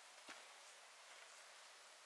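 Near silence: faint outdoor hiss, with one short faint knock shortly after the start.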